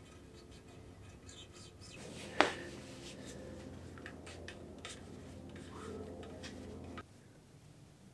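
A blue paper shop towel rubbing and crinkling against a purple handlebar, with small scattered clicks and one sharp click about two and a half seconds in. The sound drops away abruptly about seven seconds in.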